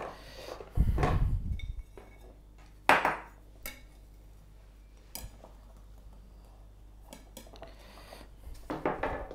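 Kitchen utensil handling: a rolling pin rolled over pastry dough on a plastic board, a sharp clack about three seconds in, then a knife cutting round the dough with a few light knocks against the board.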